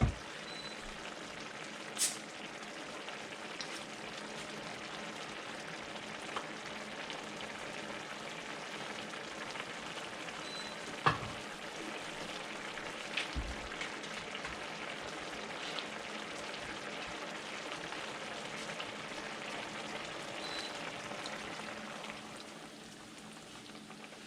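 Food frying in a pan with a steady sizzle, broken by a few sharp knocks of a utensil against the pan. The sizzle drops off near the end.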